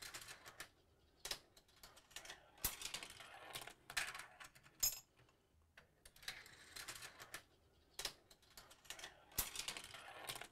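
Steel marbles rolling and clattering through a plastic Gravitrax marble run, with irregular sharp clicks and clacks as they hit track pieces, tip out of the Scoop and drop into a toy dump truck's bed.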